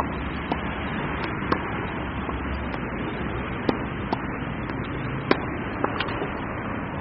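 Tennis balls being hit with a racket and bouncing: about ten sharp pops at irregular intervals, the loudest about five seconds in, over a steady background hiss.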